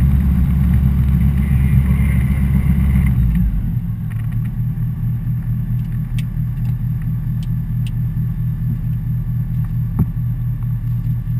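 A light single-engine propeller aircraft's engine and propeller running, heard from inside the cockpit. About three seconds in the engine drops from a louder, higher note to a quieter, steady, pulsing idle. A single sharp click near the end.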